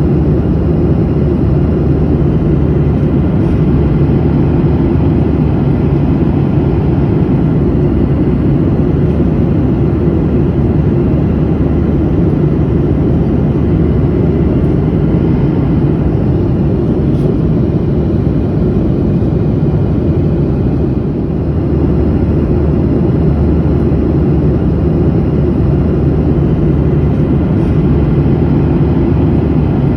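Steady low drone of a passenger airplane in flight, heard from inside the cabin: engine and airflow noise, mostly a deep rumble with a faint hum and no change.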